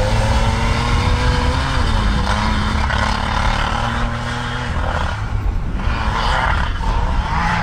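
Can-Am Maverick side-by-side engine revving hard and held high while the vehicle spins circles with its front differential locked, tyres churning through wet grass and slush. The revs sag about five seconds in, then climb again near the end.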